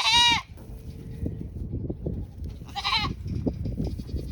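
Goat bleating twice: a loud call in the first half second and a shorter, fainter one about three seconds in, over low rustling and crunching.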